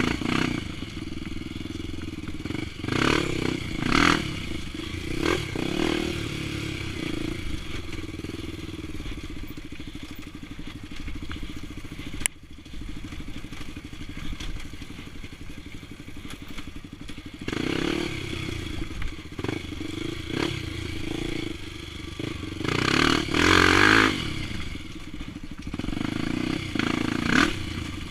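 Trail motorcycle's single-cylinder four-stroke engine running while riding a dirt trail, with repeated surges of throttle that rise and fall, the loudest about 23–24 seconds in. Rattling and scraping of the bike over rough ground, and one sharp click about twelve seconds in.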